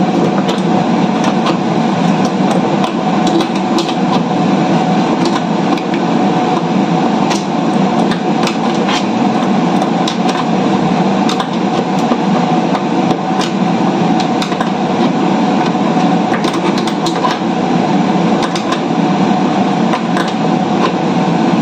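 Steady mechanical drone of ventilation machinery, with scattered light metallic clicks and taps from an adjustable wrench working the nuts of a cart's caster wheels.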